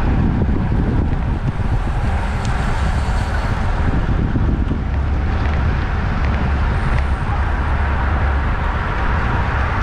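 Steady, loud wind rush over a bicycle-mounted camera's microphone while riding a road bike at about 23–25 mph.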